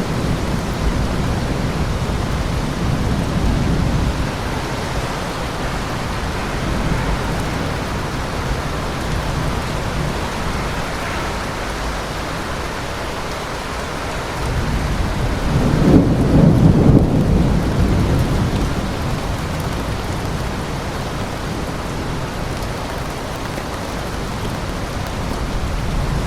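Steady heavy rain with rolling thunder: a low rumble near the start, then a louder roll of thunder building and fading over a few seconds past the middle.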